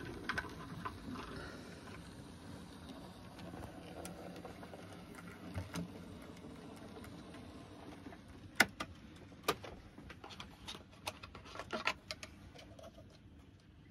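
Heljan 009-scale model locomotive and coaches running on the layout's track: a steady low running noise, with a run of sharp clicks in the second half.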